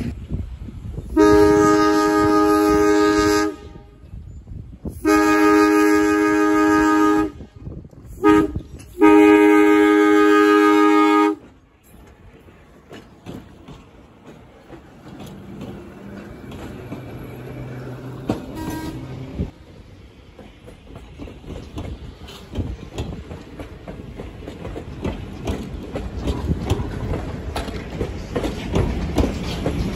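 A train's air horn sounds the grade-crossing signal, long, long, short, long, each blast a chord of several tones. Then comes the rumble and clatter of railcars rolling past over the track, growing louder near the end.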